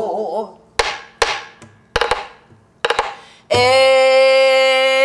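Buk, the Korean pansori barrel drum, struck with a stick about six times over the first three seconds, singly and then in close pairs, each stroke ringing briefly. After about three and a half seconds a woman's pansori voice comes in on a long, loud held note.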